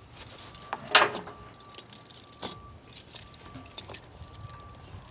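Steel tire chain links clinking and jangling as the chain is handled and fitted onto a car wheel, with a few sharp clinks, the loudest about a second in.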